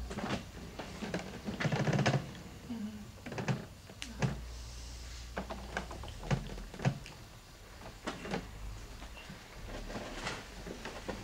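Scattered short clicks and light knocks at irregular intervals, with a denser, louder run of them about two seconds in, over a low steady hum.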